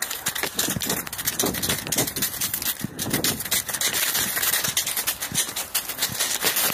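Handling noise from a phone carried in a running fox's mouth: dry leaf litter crackling and scraping against the phone, with quick irregular knocks from the fox's footfalls and fur rubbing over the microphone.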